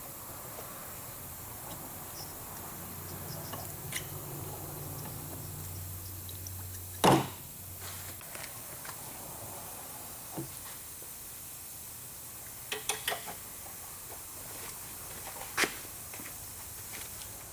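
Scattered clicks and knocks of hand work on a car's fuel filter housing: one sharp knock about seven seconds in, the loudest, and a quick cluster of clicks near thirteen seconds, over a faint low hum that stops about eight seconds in.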